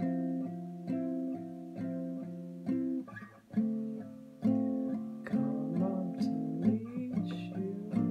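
Classical guitar played with plucked chords, struck about once a second and each left to ring. The chords come faster and busier in the second half.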